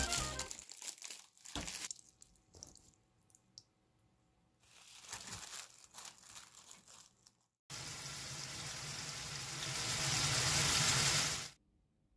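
Kitchen prep sounds: a few light knocks and rustles, then water runs from a kitchen tap for about four seconds, growing louder, and is shut off abruptly.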